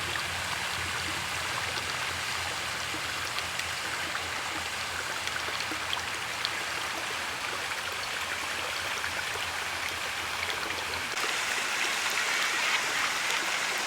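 Canal water flowing, a steady rushing with a low hum underneath. About eleven seconds in the hum cuts off and the water gets slightly louder and brighter.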